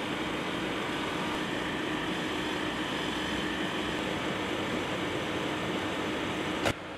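Steady drone of an engine running at a constant speed, with an even low hum. It cuts off suddenly with a sharp click near the end.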